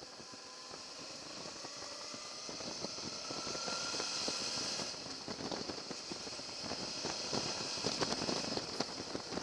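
Motorcycle on the move: a steady hiss with a faint rising whine in the first few seconds, and small crackles and clicks that grow denser from about halfway as the sound slowly gets louder.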